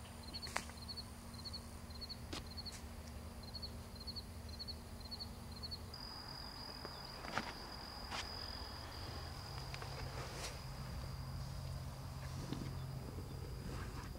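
Insects chirping in a high, even rhythm of about three chirps a second; about six seconds in, a steady high trill takes over. A few short, sharp clicks come in between.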